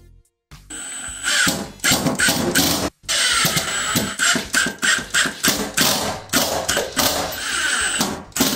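Milwaukee Fuel impact driver hammering a screw through a toilet floor adapter into a tiled floor. It runs in two bursts: the first starts softer and gets louder as the hammering kicks in, then there is a brief stop about three seconds in and a second, longer burst.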